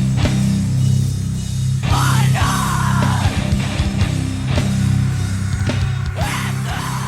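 Heavy rock music with distorted electric guitar and drums, played loud and steady.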